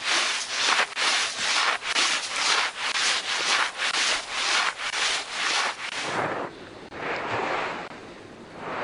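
Snowboard base and edges scraping back and forth on packed snow as the board is swivelled by twisting shoulders and hips, about three even scrapes a second. After about six seconds it turns to a steadier, lower rushing noise.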